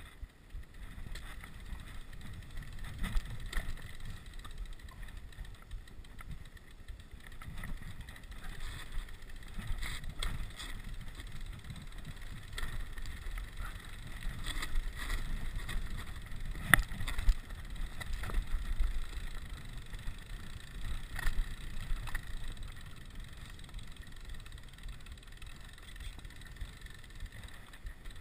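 Rigid 29er mountain bike rolling over a rough, stony track: a steady low rumble with frequent sharp clicks and knocks as the bike rattles over stones, the loudest a little past halfway.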